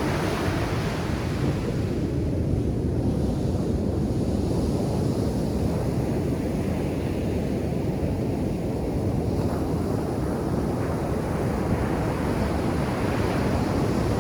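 Ocean surf breaking and washing up a sand beach: a continuous rushing noise, its hiss swelling near the start and again near the end as waves wash in.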